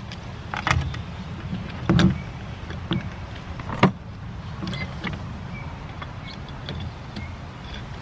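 A C-clamp being set and tightened by hand on a canoe's side: scattered clicks and knocks of the clamp's metal parts, the loudest about two seconds in and just before four seconds, over a steady low rumble.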